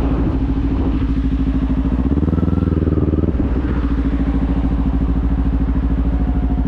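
Kawasaki 400 parallel-twin motorcycle engine running steadily while being ridden. About two seconds in the engine note briefly rises and strengthens, then settles back about a second later.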